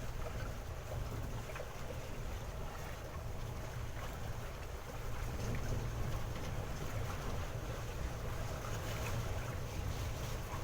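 Small boat's engine running steadily under way, with wind and water noise, a little louder from about halfway in.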